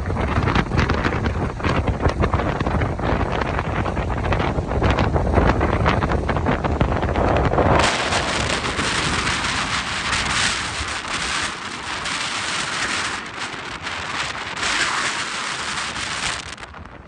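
Strong gusty wind buffeting the microphone with a deep rumble. About eight seconds in, it changes abruptly to a steady loud hiss with little low rumble.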